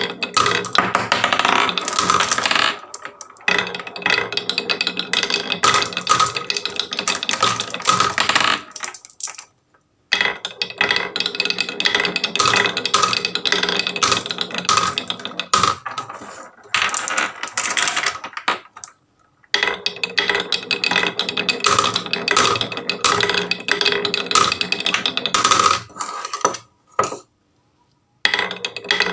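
Marbles rolling and clattering down a wooden HABA marble run track, a dense run of rapid clicks and rolling rattle, broken by short quiet gaps twice.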